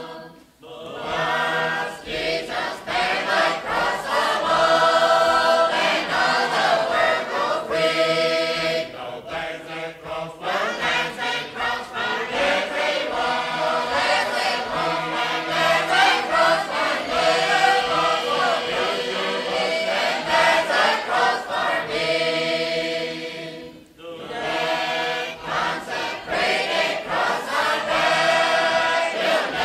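A group of voices singing a slow, chant-like song with long held notes, breaking off briefly near the start and again later before starting a new phrase.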